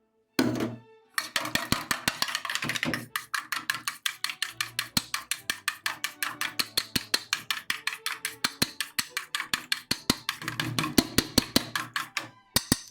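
A utensil whisking or beating a loose batter against a bowl in rapid, regular strokes, about five or six clicks a second, with a brief pause near the start.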